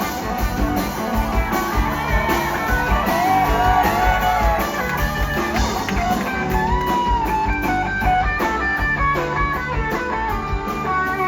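Live rock band playing an instrumental break, with a guitar carrying the melody over bass and drums.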